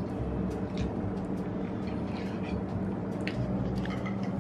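Steady low mechanical hum with a few faint, light clicks scattered through it.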